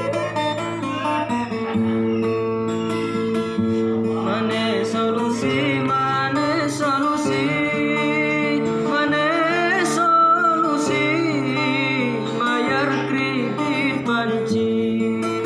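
Batanghari Sembilan regional song: an acoustic guitar plays sustained, ringing chords, and about four seconds in a voice enters singing a long, ornamented melody with heavy vibrato. The voice falls away near the end, leaving the guitar.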